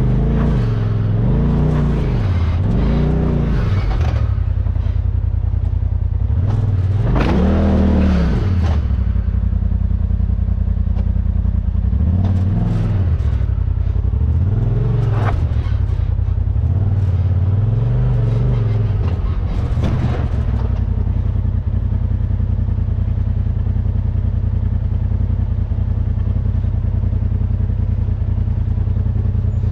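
Off-road vehicle engine revved in short repeated surges that rise and fall in pitch, the largest about seven seconds in. It then settles to a steady idle for the last third.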